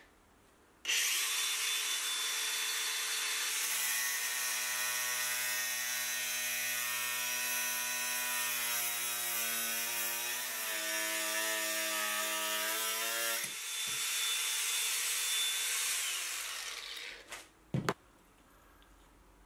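Dewalt DCG405N cordless angle grinder starting about a second in and running free with a high whine. From about 4 to 13 seconds its cutting disc cuts into mild steel bar, and the motor's pitch shifts under the load. It then runs free again and stops quickly about 17 seconds in, followed by a single click.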